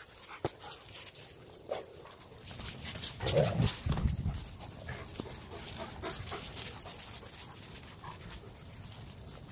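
A dog panting close to the microphone, loudest about three to four seconds in, over footsteps rustling through dry fallen leaves.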